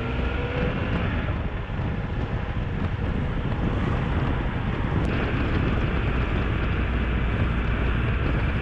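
Motorcycle engine running at a steady cruise with wind noise on the microphone, and a single short click about five seconds in.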